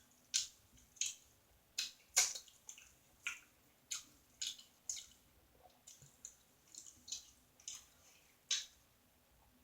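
Wet chewing and lip-smacking: a string of short moist smacks and clicks, irregular at about two a second.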